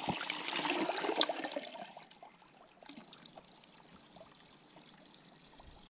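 Spring water running from a spout, an even trickling splash that drops away sharply about two seconds in, leaving only a faint trickle.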